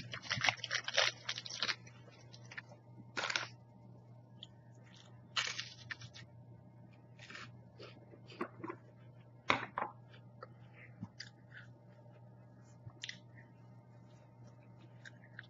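Crisp layered wafer cookie being bitten and chewed: scattered short crunches throughout. The first couple of seconds are a denser crackling as the rest of the cookie goes back into its plastic wrapper, and a steady low hum runs underneath.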